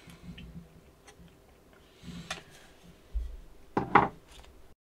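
Handling noise from a 3D-printed plastic excavator cabin turned in the hand: faint rubbing and light clicks, a low thud, then a louder sharp knock near the end before the sound cuts off.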